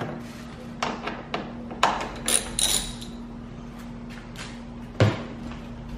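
Scattered light clicks and metallic clinks as T30 Torx screws are worked out with a hand driver and handled, with a sharper knock about five seconds in, over a steady low hum.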